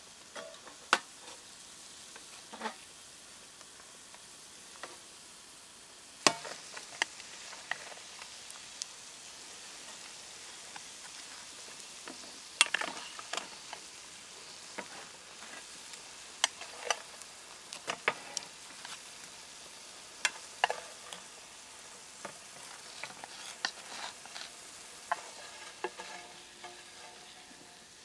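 Falafel deep-frying in a pot of hot oil with a steady sizzle. Scattered sharp clicks and knocks come from a wooden stick turning them in the pot.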